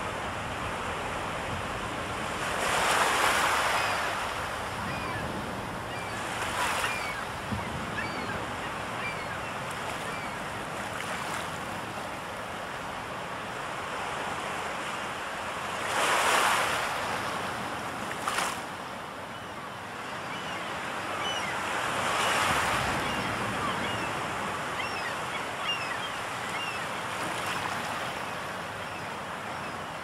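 Sea waves washing onto a shore: a steady wash with five louder breakers swelling and fading a few seconds apart. Faint, short high bird calls come through now and then.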